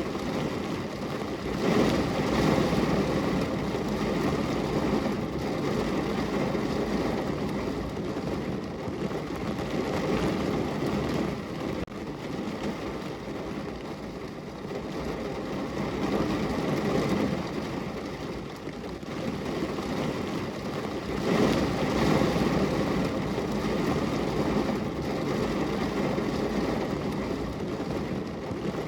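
Rain falling on a car's window and body, heard from inside the car: a dense, steady patter that swells louder about two seconds in and again about two-thirds of the way through.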